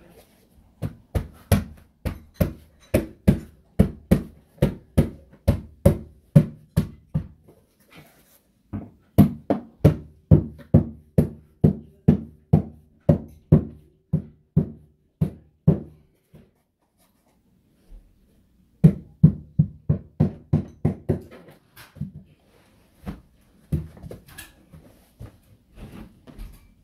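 Hammer blows fastening stair carpet, struck in steady runs of about two or three a second, each with a short ring; two pauses, one about a third of the way in, and lighter, scattered knocks near the end.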